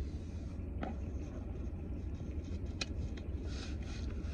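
Steady low rumble of a car's cabin, engine and running noise heard from inside, with two light clicks about one and three seconds in.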